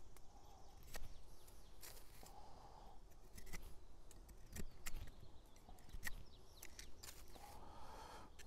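Hunting knife blade shaving a green wooden stick: irregular faint cutting and scraping strokes with sharp little clicks, several every second.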